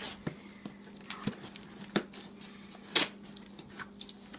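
Packaging being handled and opened: plastic crinkling with a few light knocks and clicks, the loudest about three seconds in.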